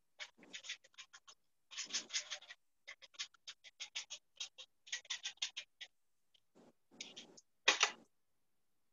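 Sprinkles being shaken out of a container onto iced cupcakes: a run of short, faint scratchy rattles, about three a second, with a louder knock near the end.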